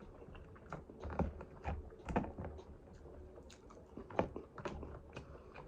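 A person chewing and biting food close to the microphone, with soft wet mouth clicks and crunches at an irregular pace.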